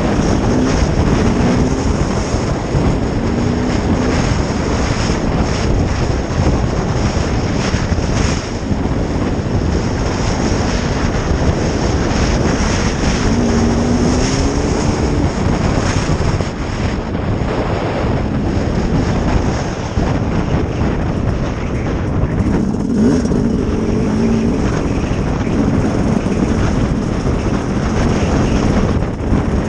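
Sherco SE-R 300 two-stroke enduro motorcycle engine running while being ridden, its pitch rising and falling several times with the throttle.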